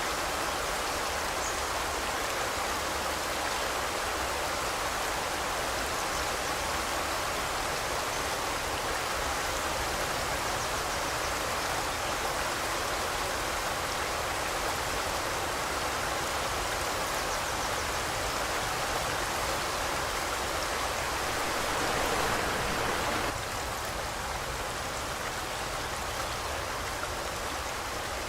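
Forest river rushing steadily over rocks, a dense even hiss of flowing water; it grows a little louder then drops slightly about three-quarters of the way through.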